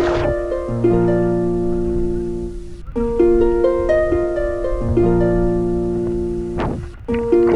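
Background music: a melody of held, plucked-sounding string notes, breaking off briefly about three seconds in and again near the end.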